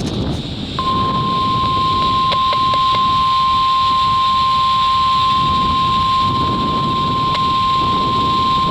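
NOAA Weather Radio 1050 Hz warning alarm tone, heard through a weather radio receiver: one steady, unbroken tone that starts about a second in. It opens the Required Weekly Test broadcast. A steady low rumble of outdoor noise runs underneath.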